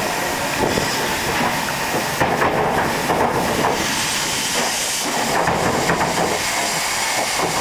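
Ivatt steam locomotive on the move at low speed, with a steady hiss of steam from its cylinder drain cocks and irregular knocks and rattles from the engine running over the rails.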